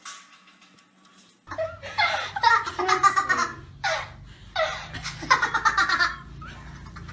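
People laughing in repeated hearty bursts, starting about a second and a half in, over a low steady hum.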